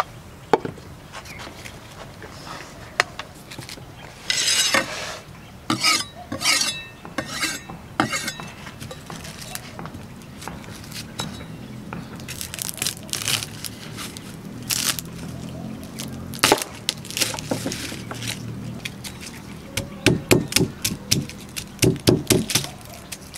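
Garlic being prepared with a broad-bladed knife on a wooden board: crackling papery skins as the bulb is broken apart, then sharp knife knocks and clicks as it is cut, ending about 20 seconds in with a quick run of chopping strokes on the board.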